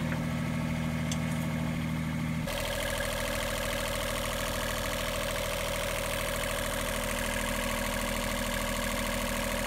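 Onboard marine diesel generator set running steadily at a constant speed, with the pitch of its drone shifting about two and a half seconds in.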